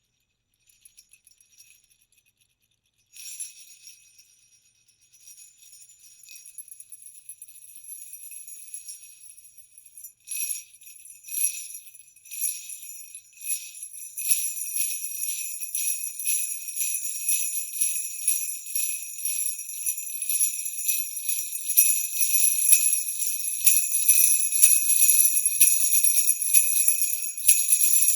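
Sleigh bells being shaken. A few faint tinkles come first, then loose, scattered jingling from about three seconds in, with several single sharp shakes partway through. From about halfway the bells shake continuously, getting louder toward the end.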